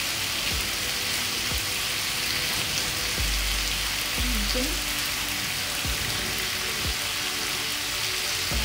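Marinated beef and vegetables sizzling steadily on a hot tabletop grill pan, with a few low bumps as the meat is turned with tongs.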